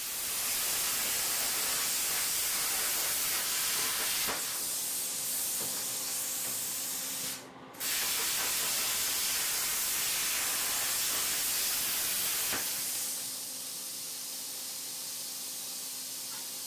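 Hand-held plasma cutter cutting a circle out of metal plate: a loud, steady hiss of the arc and air, broken briefly about seven seconds in, which stops about twelve seconds in. After that the downdraft table's extraction fan goes on with a quieter hiss and a low hum.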